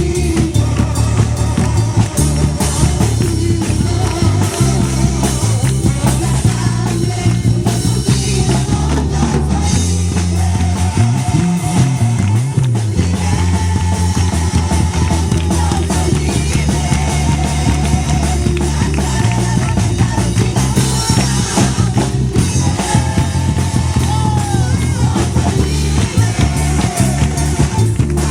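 Rock-style band music with drum kit, bass and guitar, playing steadily throughout.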